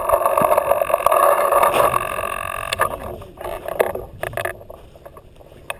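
Muffled handling noise on a paintball marker, picked up through a GoPro housing mounted on its barrel: a steady noise that fades about three seconds in, then several sharp knocks.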